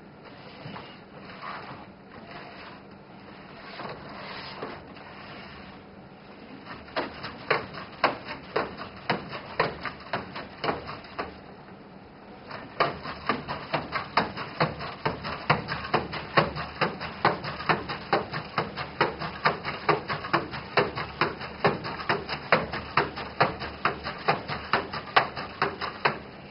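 Aldebaran NAO humanoid robot moving on a tabletop: soft whirring of its joint motors, then irregular knocks of its limbs on the table. About halfway through this gives way to a steady tapping of its feet on the table as it walks, about three steps a second.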